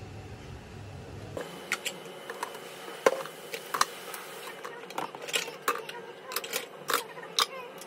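Plastic baby-bottle parts clicking and knocking as they are handled and set into a plastic steam sterilizer and drying rack: a string of sharp clicks and taps, more frequent in the second half.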